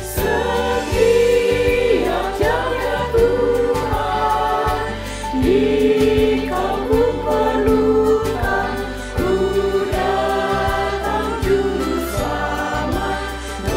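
Mixed choir of men's and women's voices singing a slow hymn in Indonesian, in held, sustained notes.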